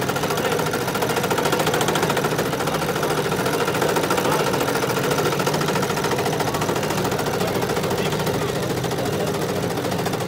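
Old red cast-iron electric coffee grinder running, grinding roasted coffee beans: a loud, steady mechanical whir with a fast rattle, stopping near the end.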